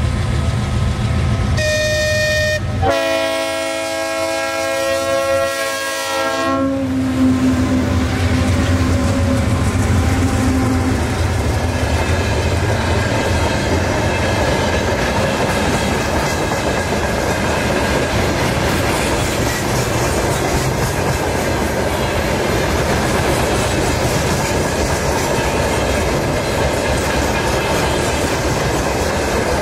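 Train horn sounding a short blast, then a longer one of about four seconds, followed by the steady rumble of a train running past.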